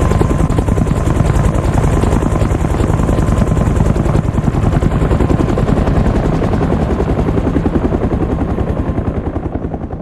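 Helicopter sound effect designed in Krotos Igniter: a fast, steady rotor chop over a low engine drone. Its highs gradually fall away and it fades near the end as the helicopter flies off under a growing low-pass filter.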